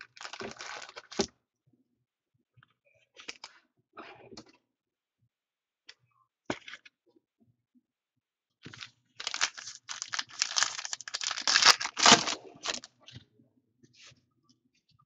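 A foil trading-card pack being crinkled and torn open by hand: a few short rustles, then a longer, louder stretch of tearing and crinkling foil about two-thirds of the way in.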